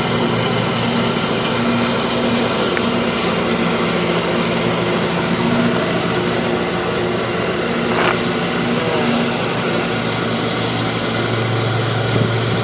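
An engine running steadily, with one sharp click about eight seconds in. Near the end comes fabric rustling and handling noise as a hat is draped over the camera.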